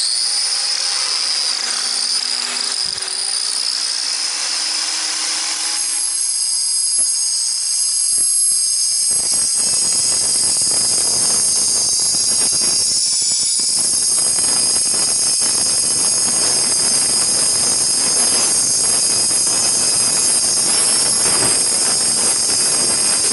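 Electric angle grinder running with a steady high whine. From about nine seconds in its disc bites into a steel chain link clamped in a vise, adding a harsh grinding rasp.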